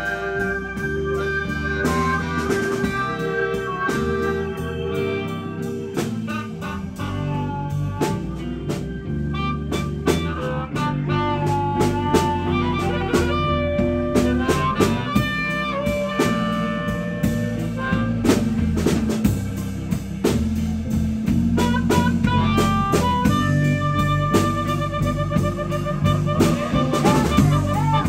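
Live electric blues band playing, with a blues harmonica played cupped against a microphone and amplified, over electric guitars, electric bass and a drum kit. The harmonica holds long wavering notes, most plainly in the second half.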